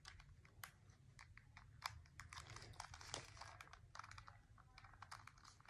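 Faint crinkling and scattered small clicks from hands handling packaging and small plastic cube parts.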